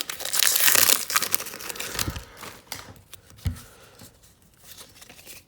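A trading-card pack wrapper being torn open and crinkled, loudest in the first second and a half, then quieter rustling and light handling knocks as the cards are taken out.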